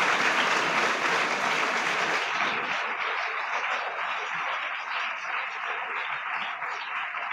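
An audience applauding, loudest at the start and slowly dying down.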